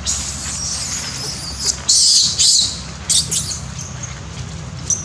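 Young macaques giving short, high-pitched shrieks and squeals while chasing each other. The loudest pair comes about two seconds in and a shorter pair follows about a second later.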